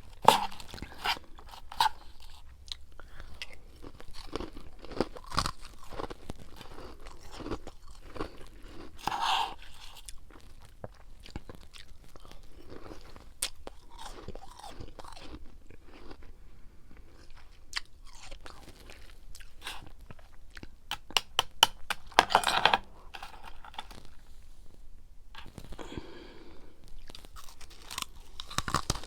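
A person biting and chewing freezer frost, close up. It makes irregular icy crunches, with a dense run of loud crunching about three quarters of the way through.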